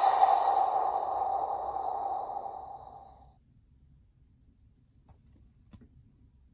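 Electronic sound effect from the Ark Driver toy's speaker, a sustained tone that fades out over about three seconds. Then a few faint clicks.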